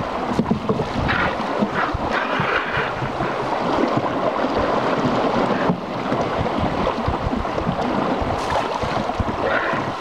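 Steady rush of river water around a flat-bottomed wooden boat, with wind gusting on the microphone.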